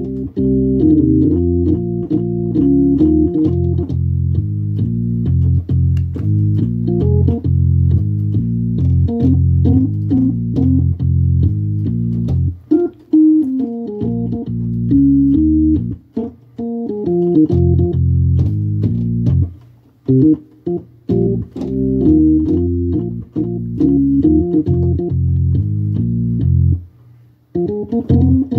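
Hammond organ played solo: full, sustained chords and a bass line low on the keyboard, with the chords changing often and a few short breaks between phrases.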